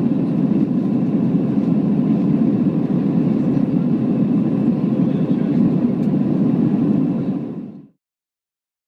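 Cabin noise of an Airbus A321-211 climbing out: a steady, deep drone of its CFM56 engines and airflow, heard from inside the cabin, fading out after about seven and a half seconds.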